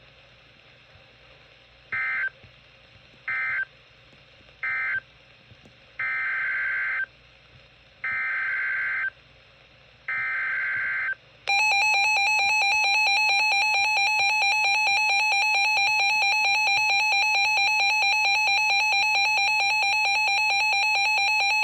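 Emergency Alert System digital data bursts: three short end-of-message bursts, then three longer warbling header bursts for the next tornado warning. About eleven seconds in, the loud steady two-tone EAS attention signal starts, with a fast beating warble, and holds for about ten seconds.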